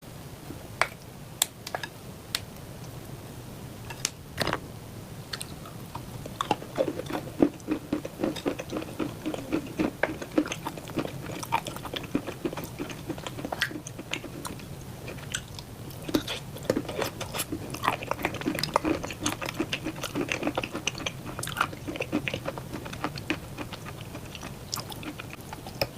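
Close-miked mukbang eating: a few sharp, separate bite clicks in the first few seconds, then continuous chewing with rapid wet mouth smacks and clicks.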